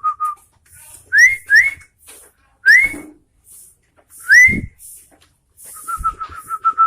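Sooty-headed bulbul (kutilang) singing: four short, loud, rising whistled notes in the first half, then a fast, even trill on one pitch near the end.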